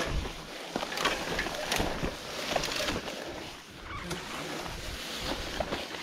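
Rustling and brushing through vegetation with scattered, irregular clicks and knocks as a bicycle is moved along an overgrown forest trail.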